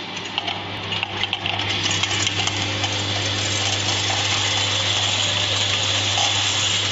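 Automatic pill counting machine running: a steady hum from its vibrating feed trays, with a dense, fine rattle of pills jostling along the stainless steel channels that builds up over the first two seconds and then holds steady.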